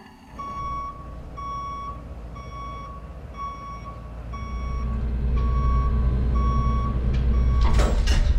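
Truck reversing-beeper sound effect: a steady beep repeating about once every 0.8 seconds over a low engine rumble that grows louder from about halfway. A couple of sharp knocks come near the end.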